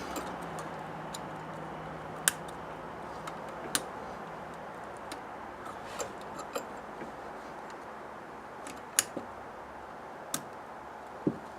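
Scattered light clicks and taps of small metal parts and hand tools, about seven over the stretch, as the carburetor's throttle linkage is worked loose, over a steady background hiss.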